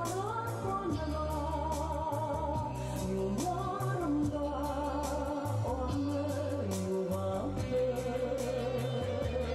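A singer performing a song with vibrato over a backing accompaniment of sustained bass notes and a steady beat.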